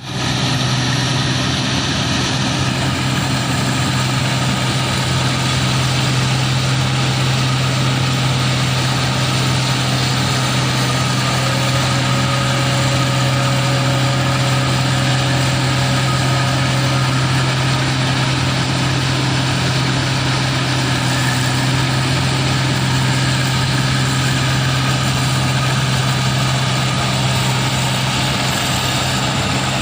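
Rice combine harvester running steadily, its engine giving a constant low drone with machinery noise over it.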